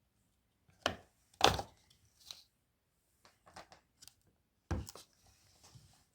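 A few separate short knocks and rustles of things being handled, about five in all, the loudest about a second and a half in.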